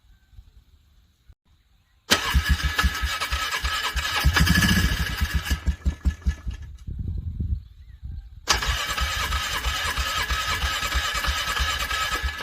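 Vehicle engine being cranked by its starter in frigid cold, struggling to turn over. It is cranked twice: the first attempt starts about two seconds in, runs for several seconds and dies away, and the second starts past the halfway point and is still going at the end.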